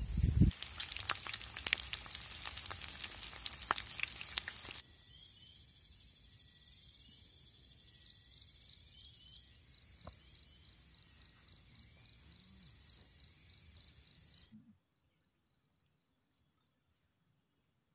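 A dense crackling hiss for about the first five seconds. Then insects calling: a steady high-pitched tone with a chirp pulsing two to three times a second, which drops to faint near the end.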